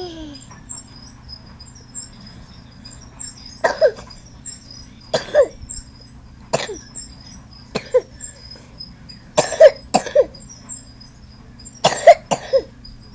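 A toddler's put-on fake cough: short voiced coughs every second or two, some in quick pairs, each dropping in pitch.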